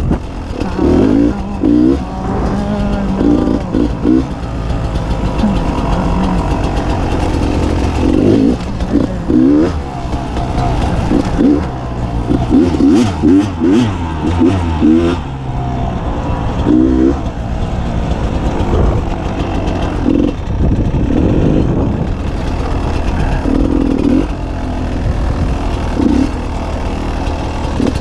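Beta 300 RR two-stroke single-cylinder dirt bike engine under way, its pitch rising and falling again and again as the throttle is opened and rolled off.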